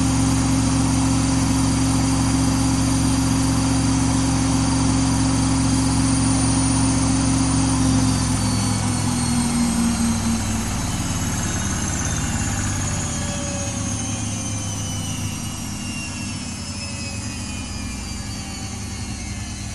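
Samsung WW80J5555FWEU washing machine spinning at high speed with a steady hum and motor whine. About eight seconds in, the drum starts to slow, and the whine falls steadily in pitch and gets quieter as the spin winds down.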